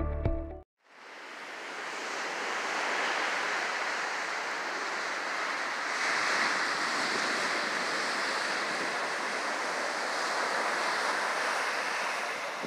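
Atlantic surf breaking and washing up a sandy beach, a steady rushing hiss that fades in about a second in. Music ends just before it.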